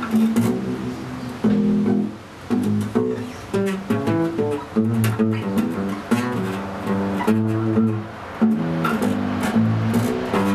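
Acoustic bass guitar played fingerstyle: a running line of plucked notes with a few short pauses.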